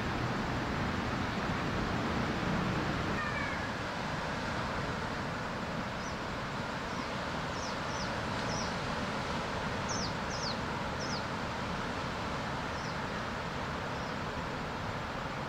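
Steady wash of surf on a beach, with small birds chirping in short, high, falling notes, most of them from about six to eleven seconds in.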